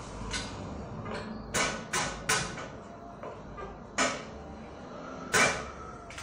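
Small metal bicycle parts being handled and fitted on a bare bicycle frame: a series of irregular sharp clicks and knocks, some with a short metallic ring. The loudest comes near the end.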